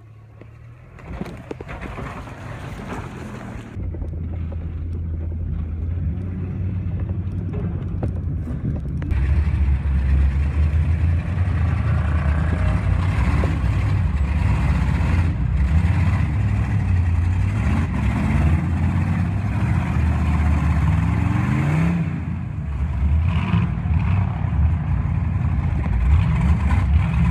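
Off-road vehicle's engine running as it drives, getting louder over the first ten seconds, with the engine note rising as it revs up about three-quarters of the way through.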